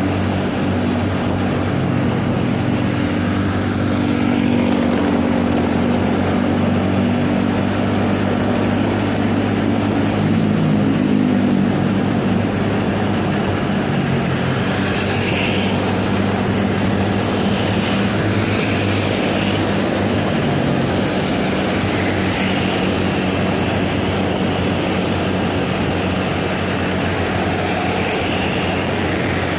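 Engine of the vehicle carrying the camera, running steadily at cruising speed with road and wind noise. Its pitch shifts briefly about ten seconds in.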